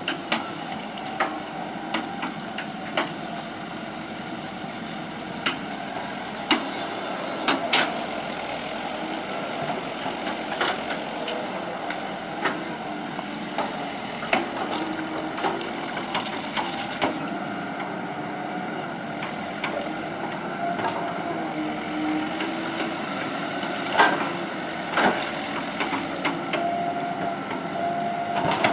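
Hitachi EX120 excavator's diesel engine running steadily while it works, with short sharp knocks now and then throughout.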